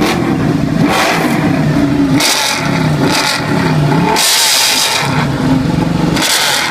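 Ducati 899 Panigale's 898 cc Superquadro twin, fitted with an Austin Racing aftermarket exhaust, revved hard while standing. There are four sharp throttle blips, about one every two seconds, each rising and then falling back toward idle.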